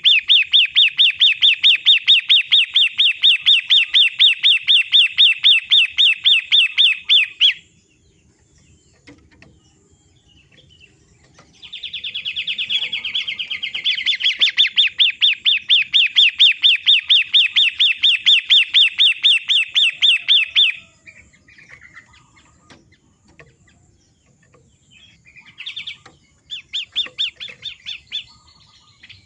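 Long-tailed shrike (pentet) calling in long runs of rapid, evenly repeated harsh notes, about six a second, loud. Two runs of several seconds are separated by a pause, and a short run comes near the end. It is a master recording played to prompt captive shrikes to sing.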